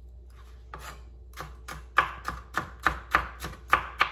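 Kitchen knife chopping a red bell pepper on a plastic cutting board: a few scattered cuts, then from about two seconds in a steady run of about four knife strikes a second.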